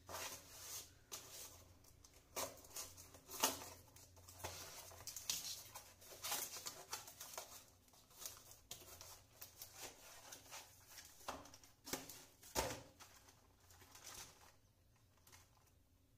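Cardboard parcel being opened by hand: packing tape torn and cardboard flaps pulled, rubbed and rustled in irregular scrapes and rips, with two sharper, louder rips, one about three and a half seconds in and one about twelve and a half seconds in. It dies down near the end.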